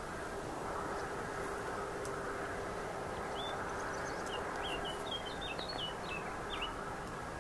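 Gulfstream G200 business jet on final approach: a steady rushing hum from its twin turbofans with a faint steady tone held under it. Partway through, a small bird chirps a quick run of short high notes for about three seconds.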